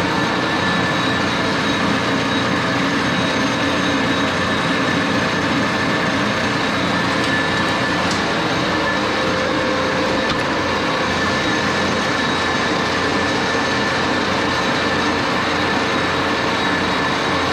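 1941 Axelson engine lathe running under power: a steady mechanical gear-train hum with a thin, steady high whine over it.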